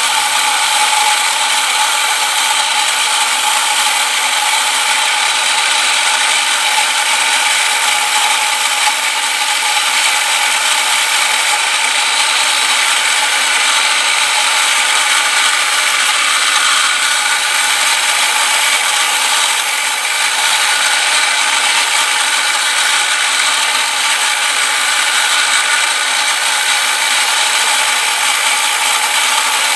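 Bench grinder's spinning wire wheel brushing rust off the steel faces of a four-way wood rasp, a loud, steady scratchy hiss.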